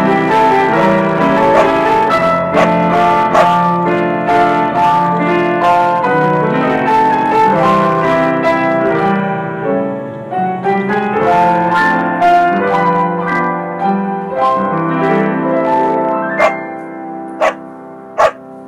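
Background piano music that grows quieter through its second half, with three short sharp clicks in the last couple of seconds.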